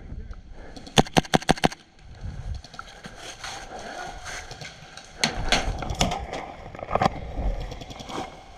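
Airsoft rifle firing a quick string of about six sharp shots about a second in, followed a few seconds later by scattered shots over rustling.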